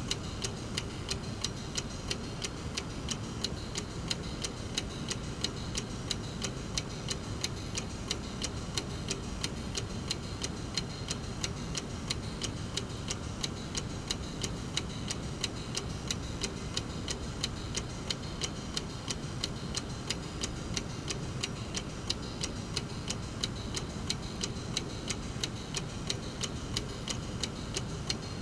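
Brass mechanical clock movement ticking steadily, its escapement giving sharp, evenly spaced clicks at a quick, unbroken beat.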